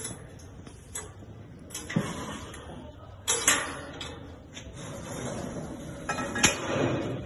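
Scattered metallic clanks and a scrape as the pins and stands of a solid-steel portable livestock loading chute are handled. The loudest clank comes about six and a half seconds in.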